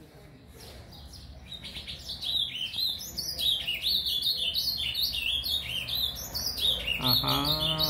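A young ultramarine grosbeak (azulão) in brown plumage singing its surdina, the quiet, rambling practice warble of a bird still learning its song. It is a continuous run of quick high notes that sets in about a second and a half in and grows louder.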